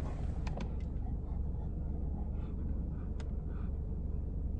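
Jeep engine idling, heard from inside the cabin as a steady low hum, with a couple of faint clicks.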